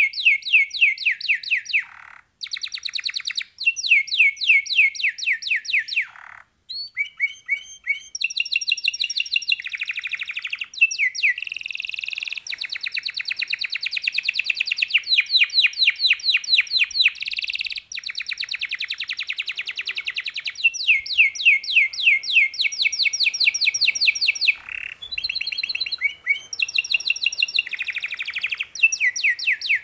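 Yellow domestic canary singing: a long song made of rapid trills, each phrase a run of quickly repeated high notes, with brief pauses between phrases.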